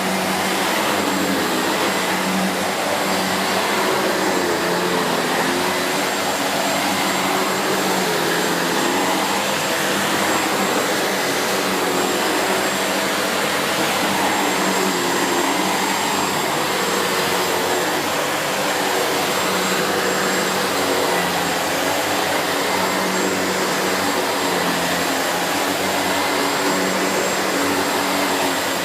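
SEBO Felix bagged upright vacuum cleaner running steadily while vacuuming, its motor giving an even rush with a low hum and a thin high whine throughout.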